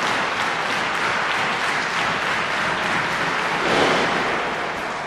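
Wrestling crowd in a gymnasium applauding and clapping, with a louder swell about four seconds in.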